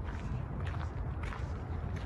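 Footsteps of a person walking at a steady pace, about three steps, over a steady low rumble.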